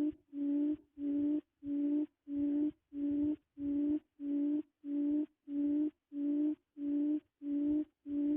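A low hooting quail call repeated at an even pace, about one hoot every 0.6 s, each at the same pitch, of the kind used to lure quail to a trap.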